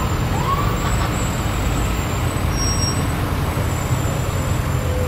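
Box ambulance's engine running with a steady low rumble as it rolls slowly past at parade pace.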